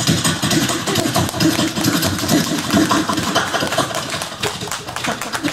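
A performer's vocal sound imitation into a microphone over a PA: a loud, continuous rough buzzing, fluttering mouth noise that resembles an idling engine.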